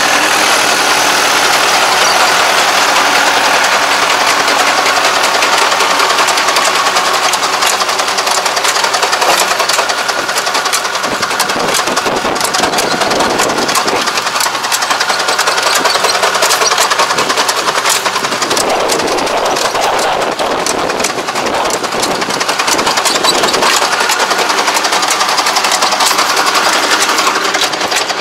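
Yanmar YT333 tractor's diesel engine and a small walk-behind machine's engine running steadily at close range during field work.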